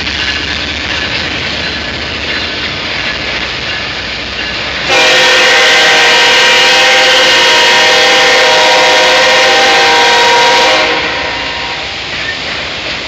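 Autorack freight cars rolling slowly past on the rails. About five seconds in, a train horn sounds a steady multi-tone chord for about six seconds, the loudest thing here, then fades, leaving the rolling cars.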